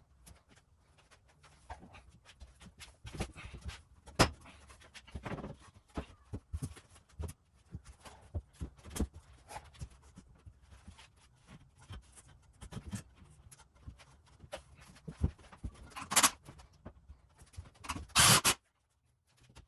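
Scattered knocks, clicks and clatter of tools and hardware being handled during a lumber rack install, with two short, louder bursts of a power tool near the end.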